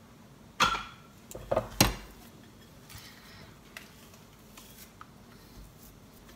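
A glass mixing bowl knocking against the kitchen countertop three times in quick succession, then faint handling clicks as sticky dough is scraped out of it onto the counter.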